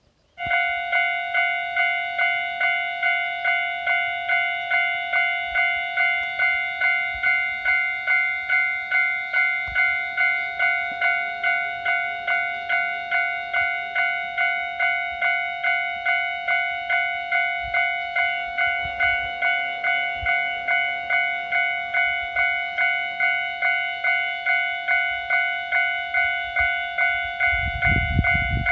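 Japanese level-crossing warning bell starts suddenly and rings steadily, a little over two strikes a second. Near the end a low rumble builds as a train approaches the crossing.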